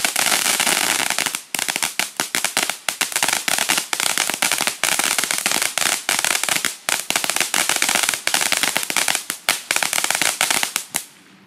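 Tank-shaped 200-gram firework fountain spraying sparks with a dense, rapid, irregular crackle of popping stars. The crackle dies away near the end as the fountain burns out.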